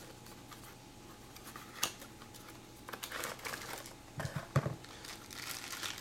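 Plastic packaging crinkling and rustling as it is handled, starting about halfway in, with a sharp click shortly before and a few dull knocks near the end.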